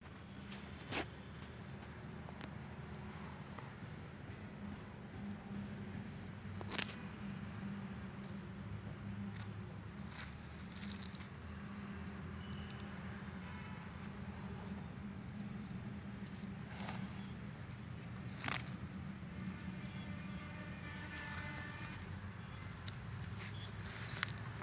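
Insects, such as crickets, chirring steadily at a high pitch, with a low hum underneath and a few sharp clicks, the loudest about three-quarters of the way through.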